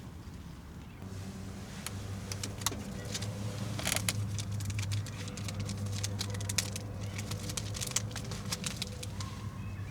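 Rapid clicks and clatter of small hard objects being handled, over a steady low hum that starts about a second in.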